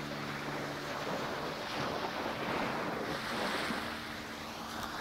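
Small waves washing in over a sandy beach, surging louder near the middle, with wind buffeting the microphone and a faint steady hum underneath.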